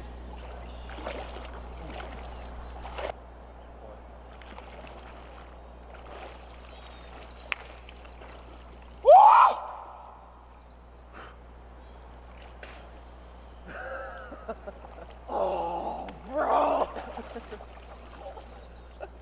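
Swimmers wading into a cold alpine lake, with light water sloshing at the start. One loud, short rising yell about halfway through, then more shouting and whooping from the swimmers near the end.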